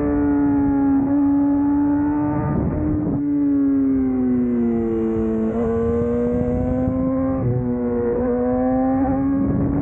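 Yamaha YZF-R6's inline-four engine running at high revs under way, its note slowly falling for about five seconds and then climbing again, with brief breaks in the note about three seconds in and again near the end.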